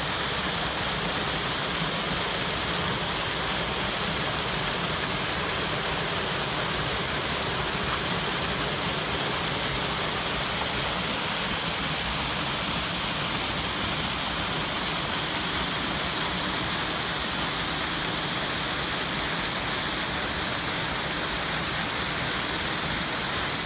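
Small waterfalls pouring down a mossy rock face and splashing into shallow pools: a steady rush of falling water, bright and hissy, with no change in level.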